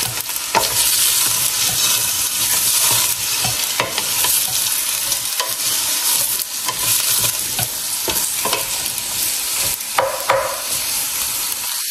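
Sliced onions sizzling steadily in hot oil in a stainless steel pot as they are browned. A wooden spatula stirs them, scraping and knocking against the pot every second or so.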